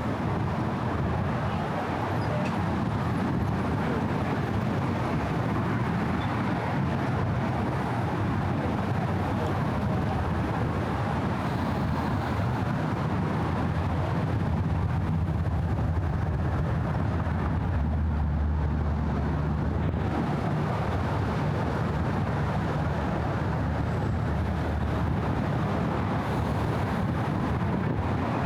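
Steady rumble and tyre hum of road traffic crossing the Brooklyn Bridge, swelling for a few seconds past the middle as heavier vehicles pass.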